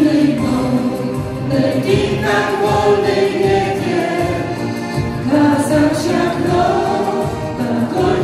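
A folk vocal ensemble singing a Ukrainian song in long held notes, with musical accompaniment.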